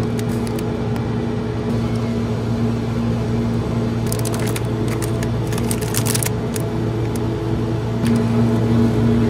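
Plastic wrappers on packaged sweets crinkling in a few short bursts as they are handled, the first right at the start and two more between about four and six and a half seconds in. Underneath is a steady low hum.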